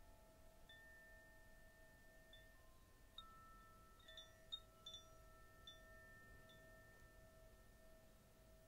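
Faint, soft meditation background music: a few long, held chime-like tones with light, high tinkling notes scattered over them, most of these around four to five seconds in.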